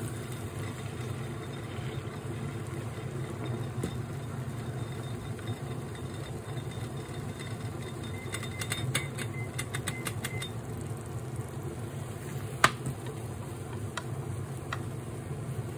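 Steady low kitchen hum under egg cooking in a rectangular tamagoyaki pan, with wooden chopsticks clicking against the pan: a quick run of taps a little past the middle, then a sharp single click and a couple of lighter ones near the end as the omelette is rolled.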